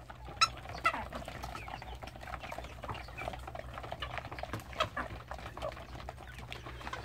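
A flock of chickens feeding: many small clicks and taps with scattered short clucks. Two louder squawks come in the first second, and another about five seconds in, over a low steady hum.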